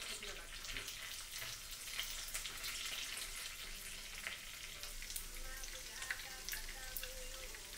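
Food frying in hot oil: a steady crackling sizzle with sharp pops here and there.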